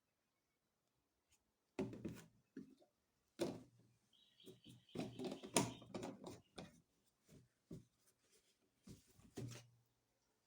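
Irregular knocks, clicks and rustling of plastic being handled at a front-loading washing machine's detergent dispenser drawer as detergent and softener are put in, starting about two seconds in.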